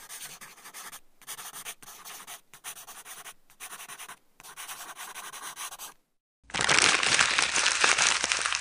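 Felt-tip pen writing on lined paper: a run of scratchy strokes with short pauses between them. After a brief silence about six seconds in, a sheet of paper is crumpled into a ball, a much louder dense crackle.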